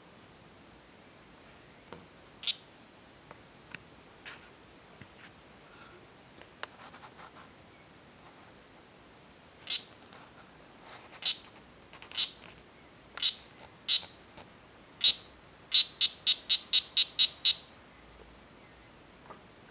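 Strawberry poison dart frog (Oophaga pumilio, 'Blue Jeans' morph) calling with short, high chirps. They come singly and well spaced at first, then in a quick even run of about five a second near the end.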